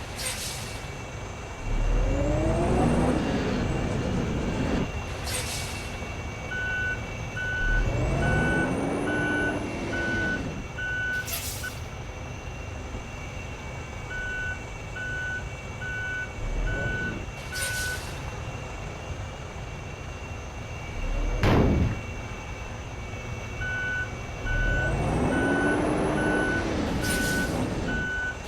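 Large bus manoeuvring: a reversing alarm beeping in three runs of short, evenly spaced beeps, sharp air-brake hisses about six times, and the engine revving up and back down three times.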